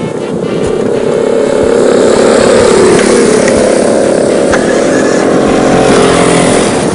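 The 200cc petrol engine of a converted mobility scooter running hard as the scooter drives along, swelling over the first two seconds or so and then holding steady and loud.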